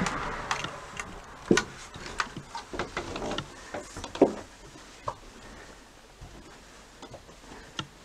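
Scattered knocks and scuffs of a stuck door being worked open: a sharp knock about a second and a half in, the loudest just after four seconds, then fainter taps.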